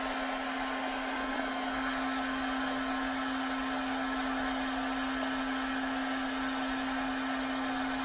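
Handheld hot-air blower running steadily on its low setting: a constant fan whir with a steady hum under it, drying freshly applied shoe paint.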